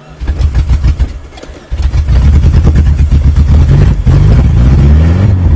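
1994 Geo Tracker's four-cylinder engine being cold-cranked by the starter for under two seconds, then catching and running, with the revs rising from about four seconds in. The cranking gives away bad compression on one cylinder, which the owner takes for a half-dead cylinder.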